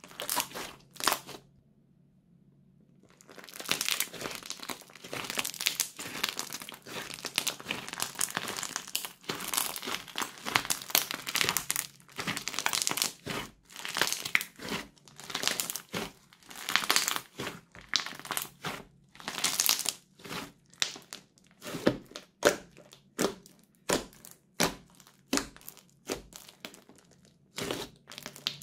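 Crunchy slime with bits of bag mixed in, kneaded and squeezed by hand, crackling and crinkling. After two short squeezes and a brief pause it crackles almost continuously, then turns to separate squishy presses about once a second for the last several seconds.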